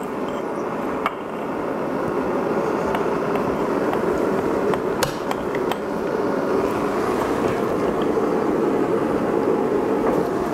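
A steady rushing noise that grows a little louder, with a few sharp metallic clicks. The clicks come as a warmed aluminium piston is handled on its connecting rod and the gudgeon pin is pushed through by hand.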